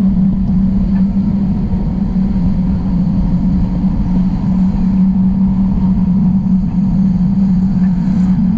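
Pickup truck driving on a road, heard through a camera suction-cupped to its hood: a steady engine drone under a heavy low rumble of wind and road noise.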